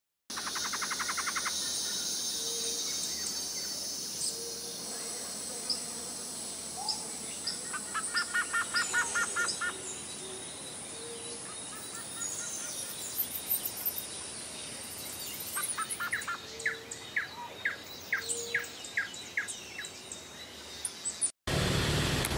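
Several birds chirping and singing, with a quick run of short repeated notes about a third of the way in and another run of sharper chirps later. Near the end it cuts to a steady outdoor background noise.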